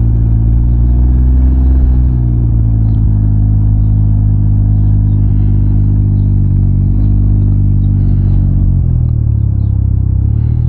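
Can-Am Ryker three-wheeler's engine running at low road speed, a steady low drone. Its pitch dips briefly about nine seconds in, then picks up again near the end.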